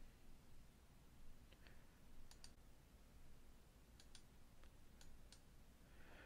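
Near silence with faint computer mouse clicks scattered through, several in quick pairs.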